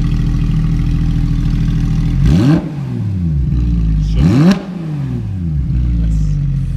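Straight-piped Porsche 911 GT3 RS naturally aspirated flat-six idling, blipped twice in quick succession. Each blip's pitch shoots up, then falls back to the steady idle.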